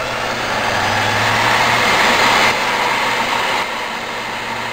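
DC motor and belt-driven spindle of a wood lathe running and spinning up as the speed control is turned up. The whirring grows louder for about two and a half seconds, then drops back a little in two steps.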